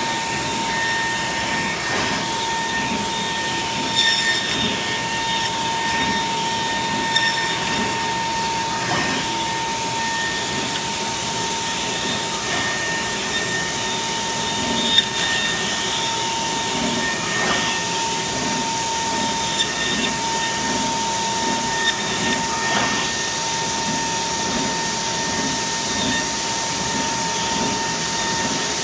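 Kongsberg XP cutting table's high-speed milling spindle running at 55,000 rpm with a steady high whine, its router bit cutting 1-inch Gator foam board at 500 in/min over a constant rushing noise. A few sharp ticks break through, the loudest about halfway through.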